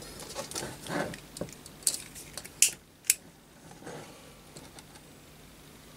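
Clip-top glass jar with a wire clasp being unclipped and its glass lid swung open: a run of small clinks and clicks of glass and metal, with two sharp clicks about two and a half and three seconds in.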